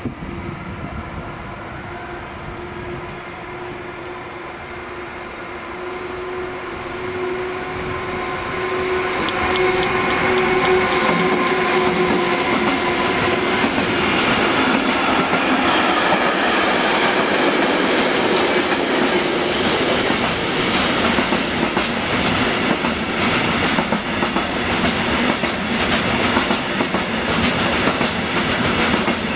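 Intermodal freight train approaching and then passing close by. A steady humming tone grows louder over the first ten seconds, then gives way to the continuous rumble of pocket wagons carrying lorry trailers, with wheels clicking rhythmically over the rail joints.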